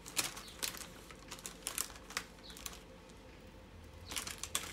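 Small clear plastic bags crinkling in the hands in short irregular spells, as loose diamond-painting drills are sorted into them.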